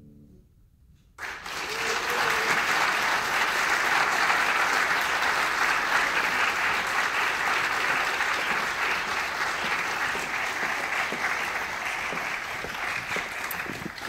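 The final piano chord dies away, then about a second in an audience breaks into steady applause, easing off slightly near the end.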